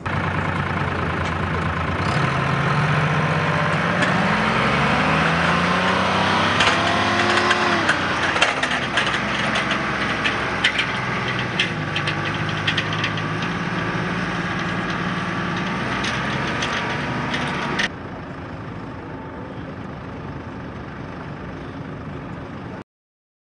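Aircraft tow tractor's engine running, its pitch climbing for a few seconds and then settling to a steady run, with scattered clanks and rattles in the middle. About eighteen seconds in it drops abruptly to a quieter engine sound, which stops near the end.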